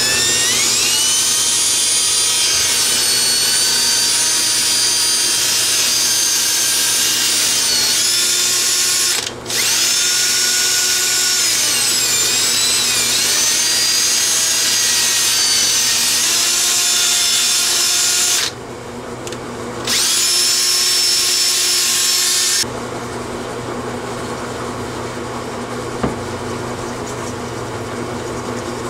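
Cordless drill spinning a wire brush against the valve area of a 2003 Honda Shadow 750 cylinder head, cleaning off rust. The motor's whine wavers in pitch as it works. It stops briefly twice, about a third of the way through and again past halfway, then stops for good about three-quarters through, followed by a couple of light clicks.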